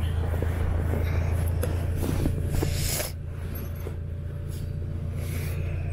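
Canvas swag and its bedroll rustling and scuffing as they are rolled up and pressed flat by hand, loudest a little before three seconds in, over a steady low hum.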